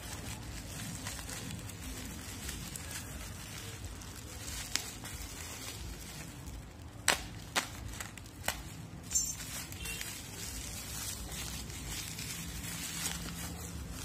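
Small handling noises: a few sharp clicks in the middle and a brief crinkling rustle, over a steady low background hum.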